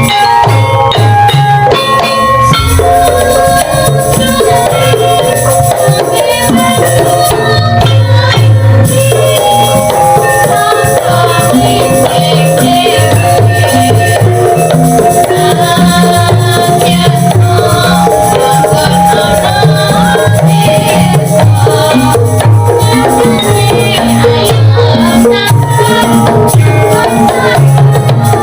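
Javanese gamelan ensemble playing without a break: bronze metallophones and gongs holding long ringing notes over a steady pattern of kendang drum strokes, with a wavering melodic line above.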